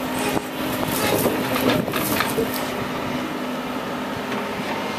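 Caterpillar excavator's diesel engine running with a steady hum, with a run of sharp knocks and clanks over the first two and a half seconds as its tie grapple works. The sound then settles to the engine alone.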